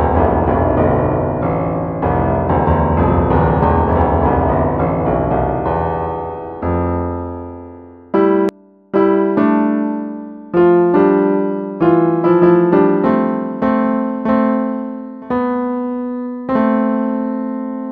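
Synthesized piano from a phone piano app. Dense, sustained chords over a bass line run for about six seconds, then a chord is left to die away. After that come single notes and small chords struck one at a time at a slow, uneven pace, each ringing out, with the last one held.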